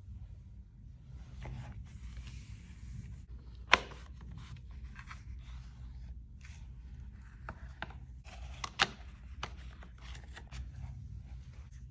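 Unboxing of an Apple FineWoven iPhone case: paper and cardboard packaging rustling, rubbing and tearing as it is opened, with scattered sharp clicks and taps. The loudest clicks come about four seconds in and near nine seconds.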